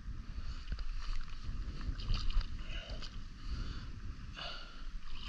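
Wind rumbling on the microphone, with irregular water splashing from a hooked sea trout being played at the surface close to the bank.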